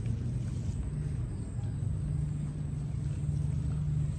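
A steady low rumble, with a motor-like hum setting in about a second in.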